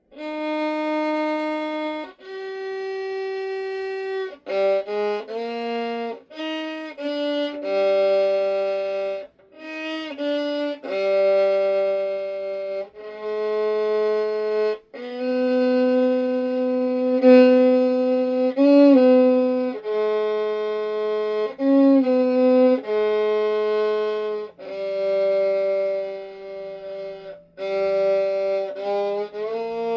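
A solo bowed string instrument playing an improvised melody of held notes, one after another with short breaks, sometimes two notes at once, with a few brief sliding notes.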